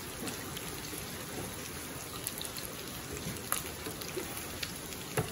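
Bacon and embutido frying in bacon fat in a nonstick pan: a steady sizzle with small crackles, and a few light clicks of tongs against the pan.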